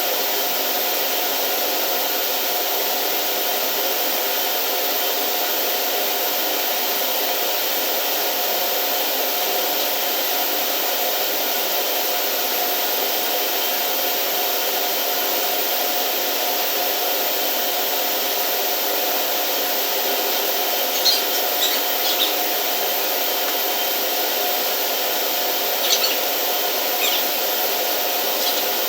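Steady whir of running industrial machinery, with a faint steady hum in it, and two short clusters of clicks in the last third.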